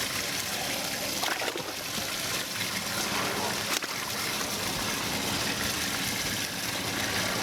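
Water trickling and splashing steadily, with one sharp click a little past the middle.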